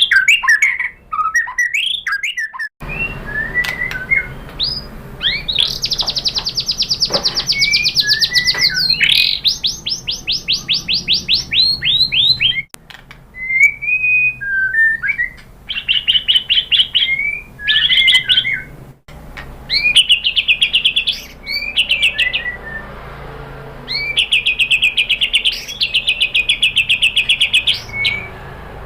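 White-rumped shama (murai batu) song: clear whistled phrases and long, fast runs of repeated notes, the rapid 'tembakan' volleys. The song breaks off abruptly a few times and resumes.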